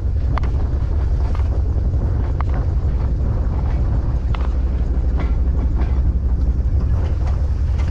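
Steady low rumble of a vehicle being driven, with irregular knocks and rattles.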